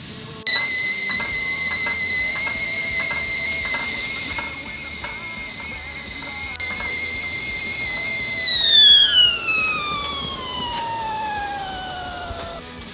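Stovetop whistling kettle whistling at the boil. A steady, loud, high whistle starts abruptly about half a second in, holds for about eight seconds, then slides down in pitch and fades as the steam flow drops.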